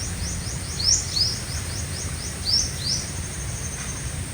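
Sunbird calling: a rapid series of short, high, downward-sweeping chirps, several a second, thinning out after about three seconds.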